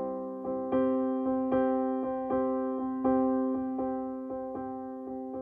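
Background piano music, single notes struck at an even, unhurried pulse, each ringing and fading before the next.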